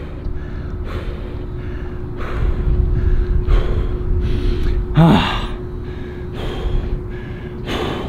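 A man breathing hard and gasping for air, a deep breath about every second with one voiced gasp about five seconds in: winded from running the shuttle laps of the beep test.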